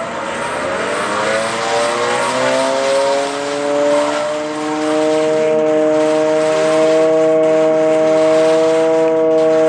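WWII air raid siren winding up, its pitch rising over the first few seconds and then holding a steady, monotonous tone: the all-clear signal.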